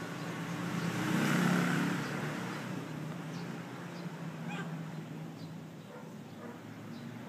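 A passing vehicle, swelling to its loudest about a second and a half in and then fading, over a steady outdoor background.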